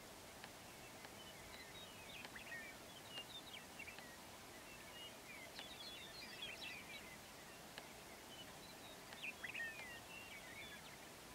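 Faint open-air ambience with a steady hiss and scattered short, high bird chirps and twitters that come in three loose flurries.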